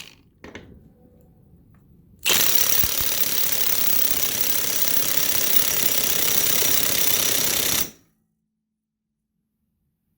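Milwaukee high-torque impact wrench running on a 2 Ah compact battery at speed 3, hammering continuously for about five and a half seconds and then cutting off suddenly.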